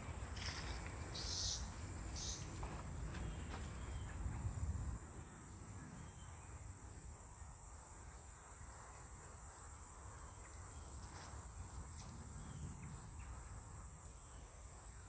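A steady, high-pitched chorus of insects trilling in summer woodland. Under it, a low rumble stops about five seconds in.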